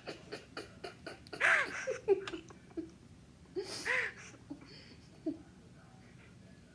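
Young women laughing in short, high-pitched bursts, loudest about one and a half seconds in and again about four seconds in, with a few sharp clicks near the start.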